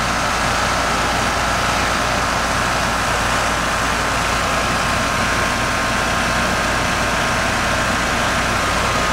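A 5-ton central air conditioner's outdoor condensing unit running: the compressor and condenser fan make a steady rush with a faint steady whine over a low hum. The system is running undercharged, low on refrigerant, while it is being charged.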